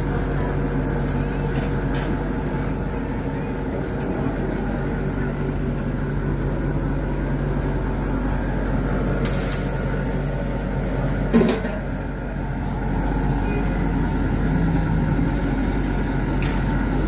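Steady low hum of a burger grill stall, with a few light metal clicks of a spatula and one sharper knock about eleven seconds in.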